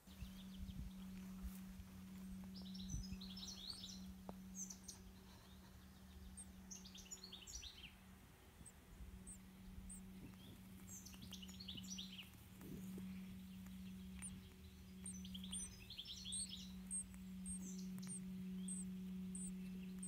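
Nestlings in a cavity nest giving high, quick falling begging chirps in bursts every few seconds, with short higher peeps joining in near the end. A steady low hum runs underneath, and there are a few knocks at the start.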